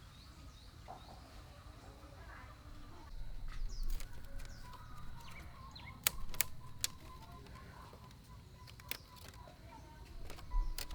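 A few sharp knocks or taps, three close together about six seconds in and one more near the end, over faint bird chirps.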